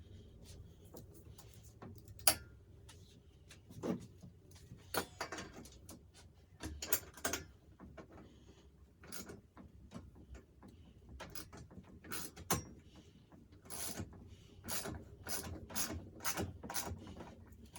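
Hand-tool work on metal pocket-bike parts: scattered sharp clicks and knocks, with a quicker run of clicks in the last few seconds, like a ratchet being worked.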